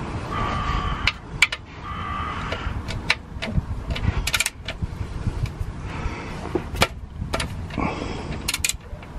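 Irregular metallic clicks and clinks of a socket and ratchet being worked on bolts under a car, undoing them, over a steady low rumble.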